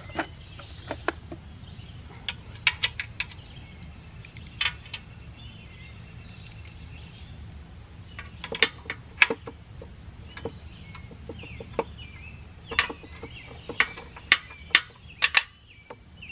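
Irregular sharp metal clicks and clinks of hand tools and bolts as the shroud bolts are worked out of a Briggs & Stratton small engine. A steady high insect trill runs underneath.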